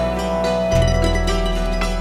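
Instrumental background music, with one high note held through most of it over a low bass line that shifts about two-thirds of a second in.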